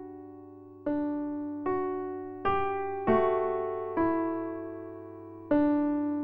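Background music: slow, gentle piano, single notes or chords struck and left to ring and fade before the next.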